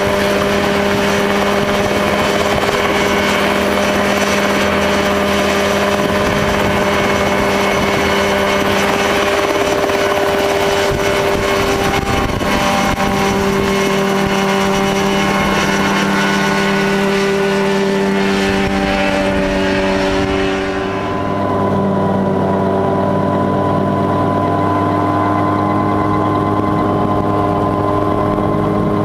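Mosquito XE ultralight helicopter in flight: engine and rotor running steadily with a rushing top. About twenty seconds in the rushing dies away and a lower, steady engine note takes over.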